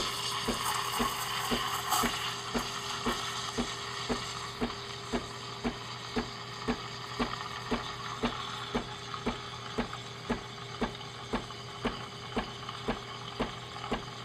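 Breville Infuser steam wand hissing into a pitcher of milk as the milk is steamed, with the machine's pump pulsing steadily about twice a second. The higher, airier part of the hiss dies down about three seconds in, leaving a softer hiss as the milk swirls and heats.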